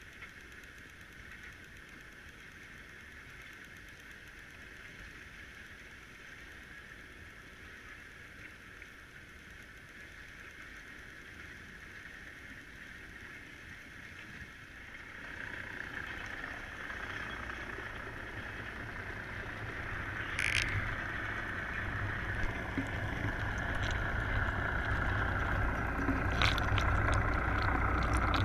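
Underwater noise picked up by a submerged camera: a steady hiss that grows louder about halfway through as a low rumble of moving water joins it, while the camera is lifted off the bottom. A couple of sharp clicks come near the end.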